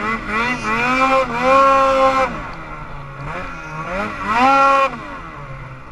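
Snowmobile engine revving up and down under the throttle while riding in deep snow. Its pitch rises and holds high twice, a little after the start and again around four seconds in, and drops off sharply each time.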